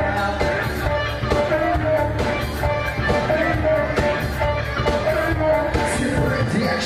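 Live band playing rock-pop music: electric guitar over drums with a steady beat.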